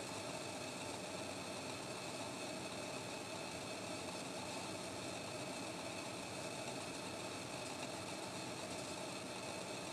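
Steady, unchanging hum with a hiss over it and a few faint steady tones. No bird calls stand out.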